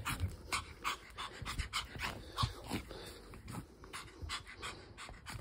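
Yorkshire terrier panting, quick even breaths at about three a second.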